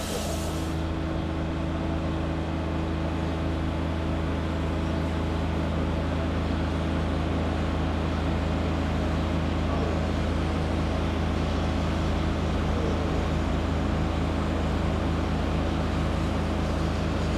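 Steady low droning hum of machinery running on the standing train, constant in pitch throughout. A high hiss cuts off within the first second.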